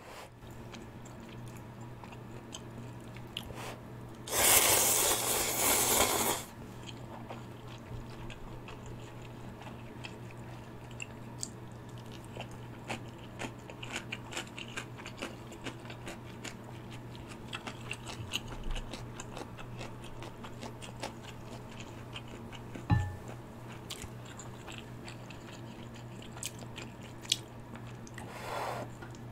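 A person slurping spicy instant ramyun noodles loudly for about two seconds a few seconds in and again near the end. Between the slurps there is close-up wet chewing with many small clicks, and one sharp knock about two-thirds of the way through.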